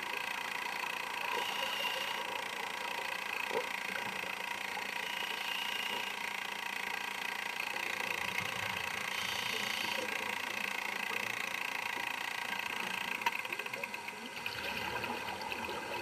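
Heard underwater: a scuba diver's exhaled air bubbling up from the regulator, strongest about eight to ten seconds in, over a steady whine made of several fixed tones.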